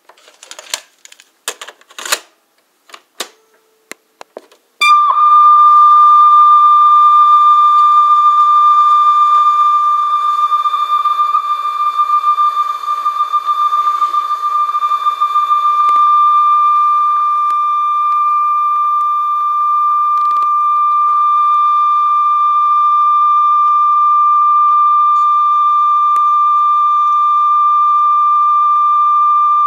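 A few clicks as the cassette is loaded and the play key of the Conion CRC-H84 boombox is pressed. About five seconds in, a steady 1000 Hz sine test tone from a speed and wow-and-flutter calibration tape starts playing through the boombox's speakers, played to check the tape speed after a new drive belt and lubrication.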